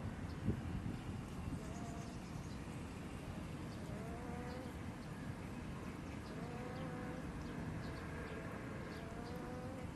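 A duck snoring while it sleeps: short rising, whistly breaths about every two and a half seconds, over a steady low rumble of background noise.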